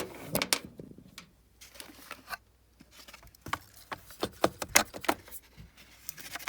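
Irregular clicks, taps and scrapes of a tool and fingers working inside a gas furnace's draft inducer, picking out rubbery foreign debris that has been binding the inducer wheel. The clicks come in two busy clusters with a short lull between them.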